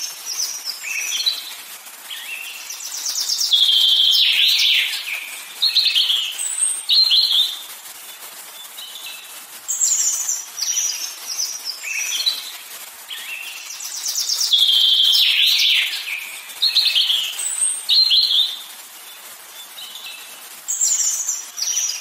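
Recorded songbird calls: chirps and trills with a short held whistle, the same run of calls coming round again about every eleven seconds, a looped birdsong track.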